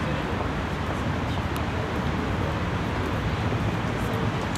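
Steady city traffic noise: a continuous low rumble of passing road traffic.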